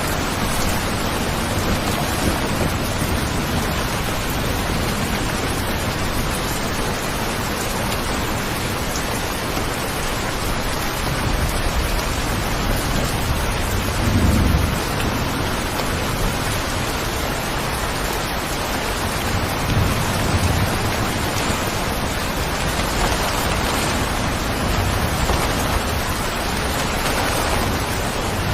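Steady heavy rain, with low rumbles of thunder about halfway through and again a few seconds later.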